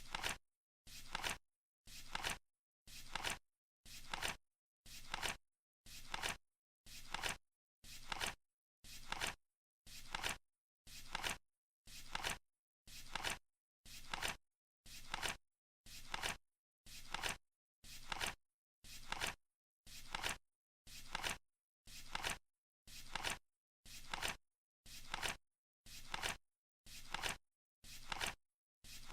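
Flip clock turning over its cards once a second, each flip a short crisp flapping sound that builds and ends with a snap, in a steady one-per-second rhythm.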